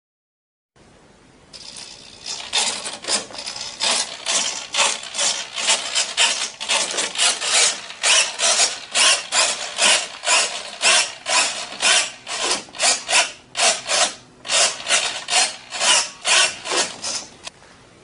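Repeated rasping, scraping strokes, about two a second, beginning about two seconds in and stopping shortly before the end.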